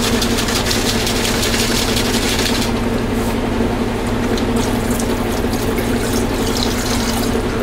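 A steady low hum runs throughout. A hissing, rushing noise sits over it for the first few seconds, then stops.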